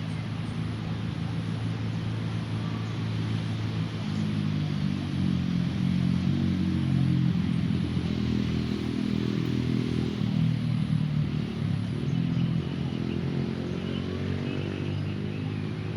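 Road traffic: a vehicle engine passing by, getting louder toward the middle and fading near the end.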